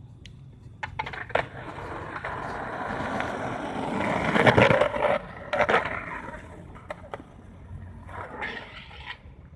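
Skateboard wheels rolling on asphalt, growing louder to a peak about four to five seconds in and then fading, with a few sharp knocks along the way.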